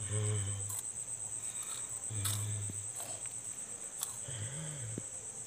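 Steady, high-pitched chirring of insects outdoors. A low hum comes and goes twice, and there are a few faint clicks.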